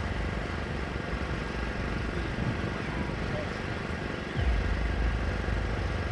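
Outdoor background noise with a steady low rumble and faint crowd chatter; the rumble gets louder about four and a half seconds in.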